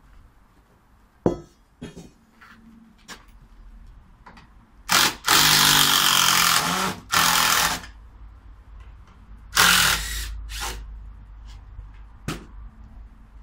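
Cordless drill run in bursts into a timber gate post: one long run of about two seconds near the middle, its motor pitch rising and falling, then a few short bursts. A few sharp knocks come before it.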